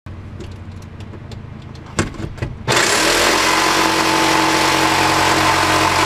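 Electric jigsaw with a wood blade cutting through wall paneling. First a low hum and a few knocks of handling, then about three seconds in the saw starts and runs loud and steady.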